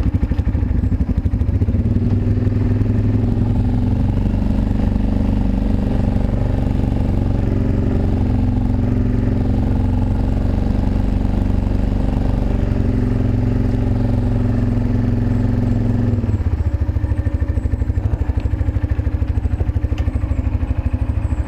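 ATV engine running steadily, with a higher droning tone layered on top that shifts in pitch and cuts off abruptly about 16 seconds in, leaving the engine running on alone.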